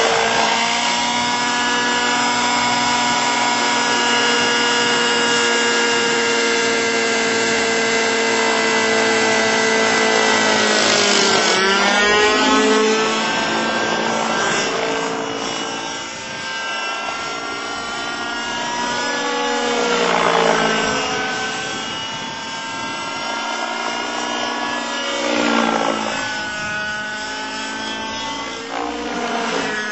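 Robbe Millenium 2 radio-controlled model helicopter running, with a steady high engine-and-rotor whine. Its pitch drops and recovers several times, around 11, 20 and 25 seconds in.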